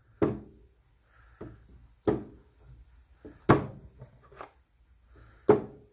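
Plastic bait-scent bottles being set one after another into the holes of a plastic scent tray and knocking down onto the plywood workbench. Several sharp knocks, roughly a second apart, the loudest about three and a half seconds in.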